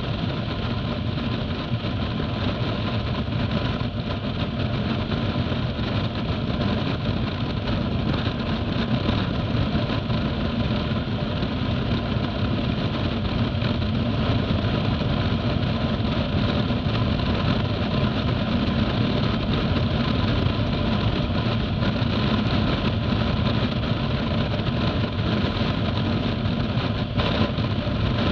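Motorcycle engine running at a steady cruise of about 90 km/h, mixed with constant wind rush and road noise.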